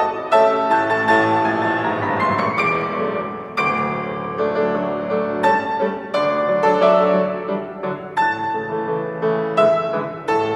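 Grand piano played solo: a piece with many struck notes and sustained chords, including a quick rising run about two seconds in.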